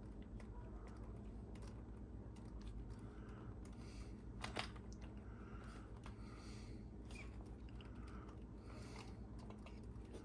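Faint clicks and rustling of small parts being handled on a workbench, the sharpest click about halfway through, over a steady low hum.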